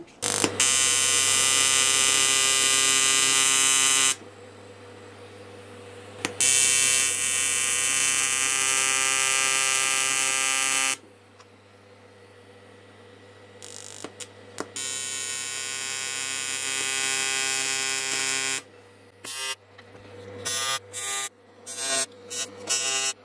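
Arc of an R-Tech 261 AC/DC inverter TIG welder buzzing while welding aluminium on 140 Hz square-wave AC. There are three steady arcs of about four seconds each, then several short broken bursts near the end.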